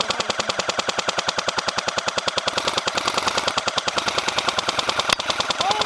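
Airsoft M60E4 electric support gun, fitted with a new motor, longer barrel and 11.1 V battery, firing one long full-auto burst: a rapid, even mechanical rattle of shots with no pause. A single sharper crack a little after five seconds in.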